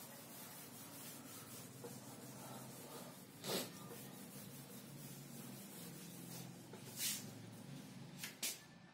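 Whiteboard duster rubbing across a whiteboard, wiping off marker writing: faint, steady rubbing with a few brief louder swipes.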